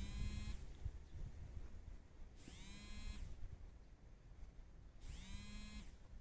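A small motor whining three times, each for under a second, its pitch rising quickly as it spins up and then holding steady.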